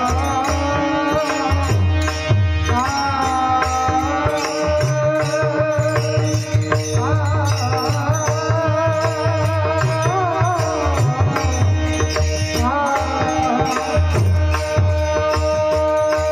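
Indian devotional music: a melody with sliding, wavering pitch over a steady drone, with a hand drum beating underneath.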